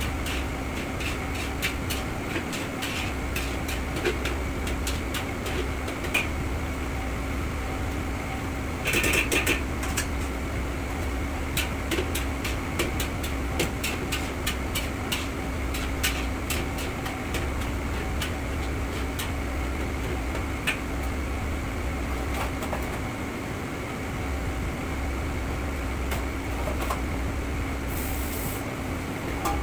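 Steady drone of a commercial kitchen's ventilation and burners, with frequent clinks and scrapes of a metal ladle working a wok. A brief louder hiss comes about nine seconds in, and near the end a tap runs into a stainless steel sink.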